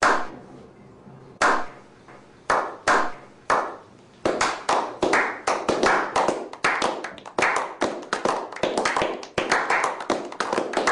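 A small group of people clapping: a few slow single claps at first, quickening into steady applause from about four seconds in.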